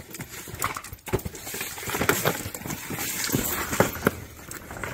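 A dog pawing and nosing at a cardboard box on a concrete floor, trying to get it open: irregular scrapes and knocks of cardboard with scattered sharp clicks.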